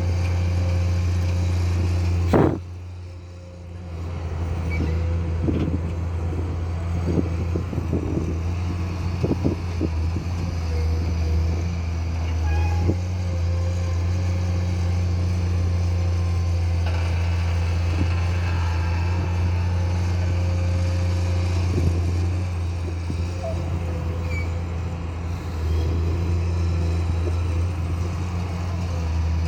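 Excavator's diesel engine running steadily, with scattered knocks and clanks from the digging, most of them between about five and thirteen seconds in. The engine sound drops away sharply for about a second just after two seconds in.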